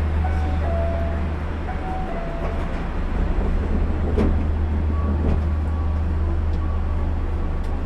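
Steady low hum of an Osaka Monorail train standing at a platform, heard from inside its cab, with a few faint short tones and a single knock about four seconds in.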